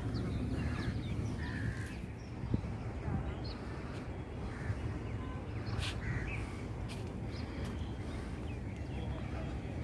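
Crows cawing now and then, with other short bird calls, over a steady low rumble of outdoor background noise.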